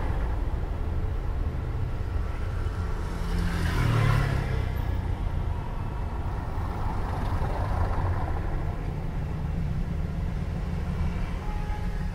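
Street traffic: motor vehicle engines rumble steadily, and one vehicle passes close about four seconds in, swelling and fading.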